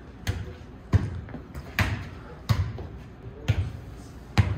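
A football thudding as it is bounced and caught, about six dull thuds roughly a second apart, ringing briefly in a hard-floored room.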